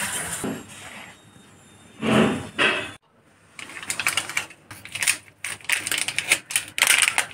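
A spoon stirring and scraping through dry flour in a metal plate. After an abrupt break, a small foil spice sachet crackles irregularly as it is handled and torn open.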